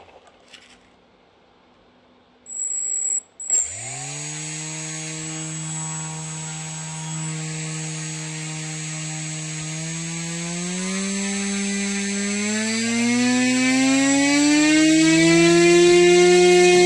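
Brushless RC motor spinning a propeller on a thrust test stand. After a short high beep about three seconds in, it starts suddenly, and its whine climbs slowly in pitch and grows louder as the throttle is turned up and the thrust rises.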